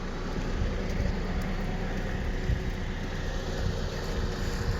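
2001 Honda Civic running, a steady blend of engine and road noise with no distinct events.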